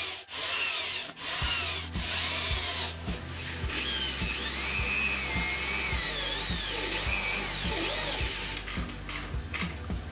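Electric drill running as it bores holes into wooden boards, with music playing underneath.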